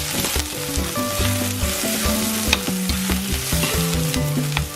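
Minced garlic and caramelized onions sizzling in hot oil in a frying pan, with a few sharp clicks. A tune with a low pulsing beat plays underneath.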